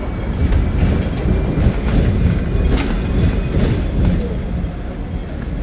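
Hong Kong double-deck electric tram running along its track: a steady low rumble with a run of clacks and knocks from the wheels in the middle, easing off slightly near the end.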